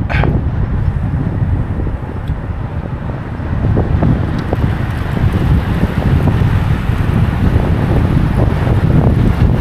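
Loud wind rushing over the microphone of a camera on a bicycle ridden at speed in a mass-start road ride, with faint ticks and rattles now and then.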